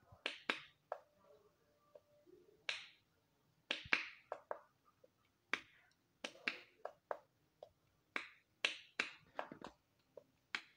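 Bubbles of a pop-it fidget spinner being pressed in by fingers: a string of about twenty short, sharp pops at an uneven pace, often two in quick succession.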